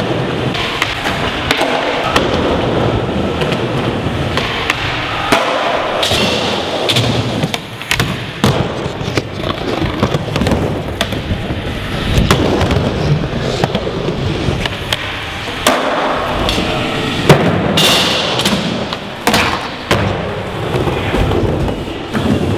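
Skateboard wheels rolling over plywood ramps, with repeated sharp clacks and slaps of the board popping and landing through a run of tricks.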